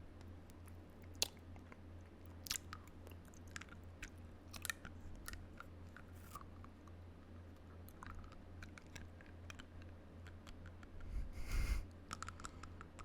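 Close-miked biting and chewing on the end of a plastic toothbrush: irregular small clicks and crunches of teeth on plastic, with a louder rustling burst near the end.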